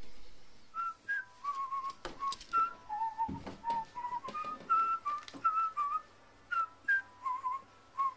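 A whistled tune of short, clear notes stepping up and down in pitch, with a few scattered clicks and a dull knock a little past the middle.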